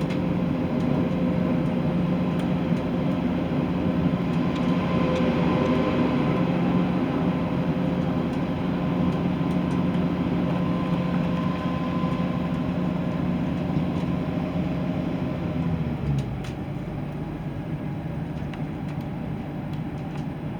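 ScotRail Class 170 Turbostar diesel multiple unit under way, heard from inside the passenger saloon: the underfloor diesel driveline gives a steady, loud howl over the wheel and track rumble. About three-quarters of the way through, the low part of the howl drops away and the sound eases, as when the power comes off and the train coasts.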